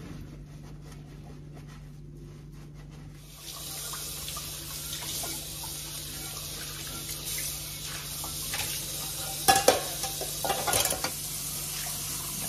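Kitchen work: a steady hiss starts about three seconds in, and two sharp clanks of pots or dishes come near the end.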